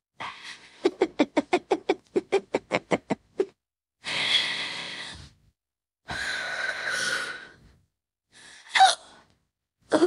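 A woman's painful hiccups and laboured breathing: a quick run of about a dozen short voiced breaths, two long breaths, then one sharp hiccup with a falling squeak near the end.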